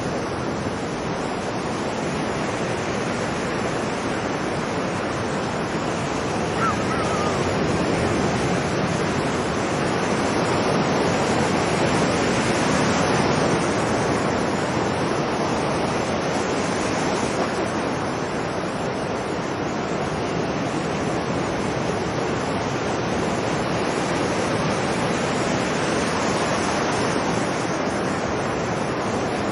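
Ocean surf breaking and washing on a beach: a continuous rushing wash that swells louder around the middle. A single brief, faint seagull call sounds about a quarter of the way in.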